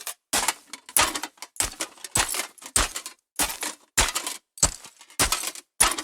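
Battle sound effect: a steady series of sharp hits, about ten of them, roughly one every 0.6 s, each with a short tail.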